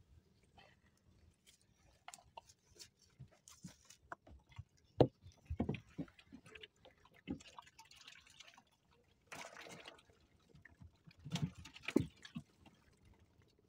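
Irregular knocks, taps and small splashes of water as a wet fish trap and its catch are handled. The loudest knocks come about five seconds in and again near twelve seconds, with a short rush of water shortly before the second group.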